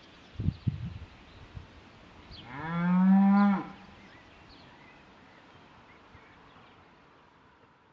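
A cow mooing once, a single call of about a second and a half that rises at the start and then holds level.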